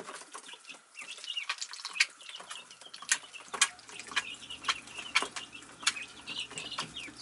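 A brood of week-and-a-half-old Khaki Campbell ducklings peeping in many short, high chirps, with scattered sharp clicks and taps as they peck at the plastic feeder and waterer.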